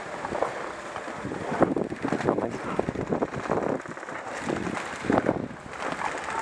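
Wind buffeting the microphone, with scattered clicks and rustling.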